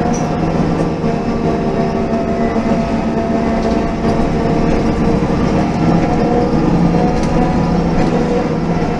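MAN NG 273 M18 articulated bus's LPG engine and Voith automatic transmission running, heard from inside the bus: a steady mix of several engine tones over rumbling road noise. Its lowest tone drops away between about two and five seconds in.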